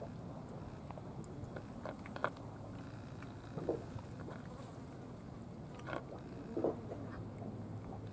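A cat eating wet meat food from a plastic tray: a few scattered chewing and lip-smacking clicks over a steady low rumble.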